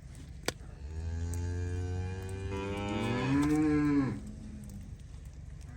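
A cow mooing: one long low moo of about three seconds that rises in pitch toward its end. There is a sharp click just before it.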